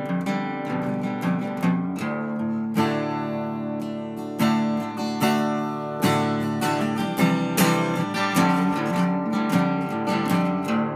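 Background music played on acoustic guitar: a run of plucked notes and chords.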